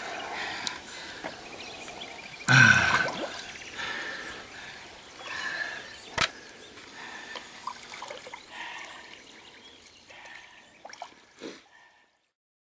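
Shallow river water sloshing and splashing around a wading angler's hands as a large wels catfish is released. About two and a half seconds in there is one brief loud cry, and the sound cuts off suddenly near the end.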